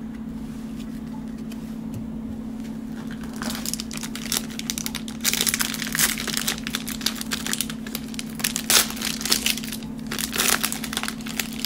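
Clear cellophane wrapper of a trading-card cello pack crinkling in the hands as it is handled and opened. The crinkling starts a few seconds in and comes in dense, uneven crackles. A steady low hum runs underneath.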